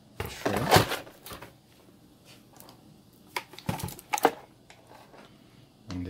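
Irregular clicks, knocks and rattles as the Azio MK Retro mechanical keyboard is handled and turned over on its clear plastic packaging tray. The loudest cluster comes in the first second, followed by scattered single knocks.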